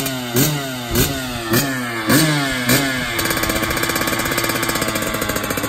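Small two-stroke dirt bike engine blipped about five times in quick succession, each rev jumping up and falling back, then settling into a steady idle for the last couple of seconds.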